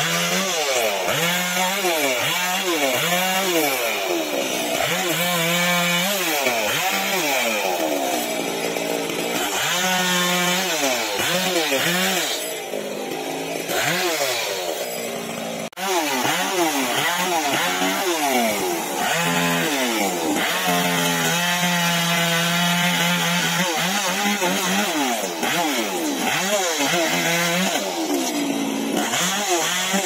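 Chainsaw cutting wood, its engine revving up and down over and over as the chain bites and eases off.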